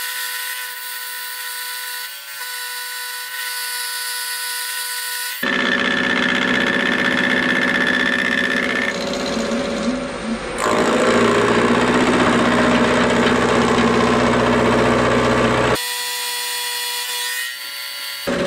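Milling machine running with a face mill cutting the edges of steel plates clamped in a vise: a steady machining whine and hiss that changes abruptly about every five seconds.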